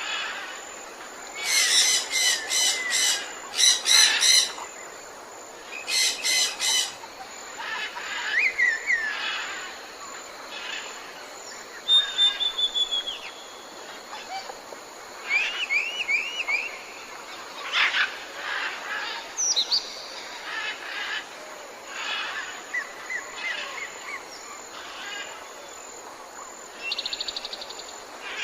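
A chorus of several birds calling and singing: loud bursts of rapid chirping trills in the first seven seconds or so, then a mix of short whistles, quick rising notes and chirps from different birds.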